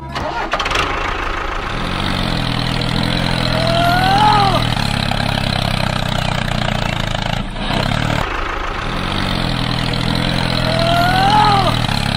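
Tractor engine running steadily, with the sound stepping up soon after it begins. It briefly cuts out about seven and a half seconds in and then starts again. A short high tone rises and falls twice over it.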